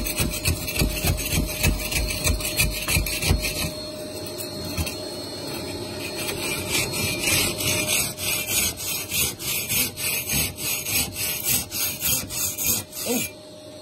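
Hand block saw cutting through a concrete block, rasping in quick, even back-and-forth strokes. The sawing stops shortly before the end.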